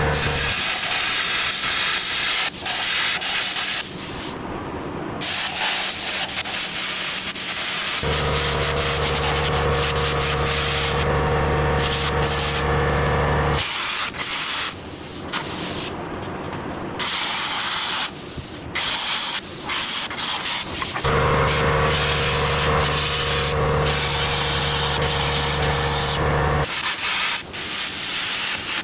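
Angle grinder grinding on a steel truck frame, running on and off with brief dips in between. A steady low hum joins in twice, for about six seconds each time.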